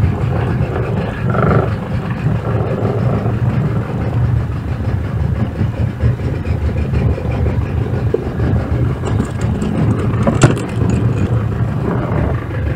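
Fishing boat's engine running steadily with a low rumble, with a single sharp knock about ten seconds in.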